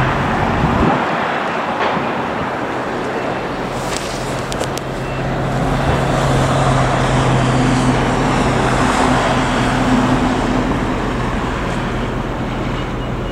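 Steady rumble of road traffic, with a low engine hum through most of it.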